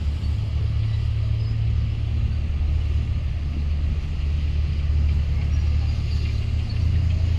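Diesel engine of a Komatsu GD655 motor grader running steadily with a deep, low hum; its note shifts slightly near the end.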